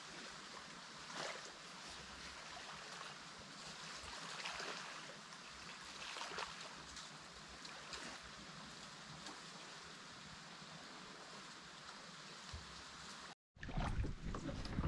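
Steady wash of river water with faint small splashes. It cuts off abruptly near the end, and a louder knocking noise takes over.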